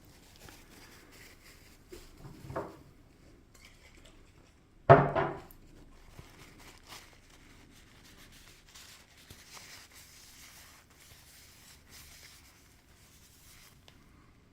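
Faint rubbing and scraping as residue of paint and silicone is cleaned off a camera lens's zoom ring, with a short knock about two and a half seconds in and a louder double knock about five seconds in.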